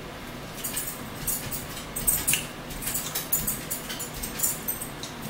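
Eating sounds at a table: an irregular string of short clicks, smacks and light clinks from chewing and from cutlery and food on the dishes.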